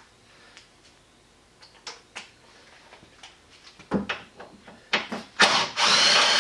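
Hands and tools working on a truck's plastic headlight mount: scattered light clicks and a knock, then a loud rasping noise lasting about a second near the end.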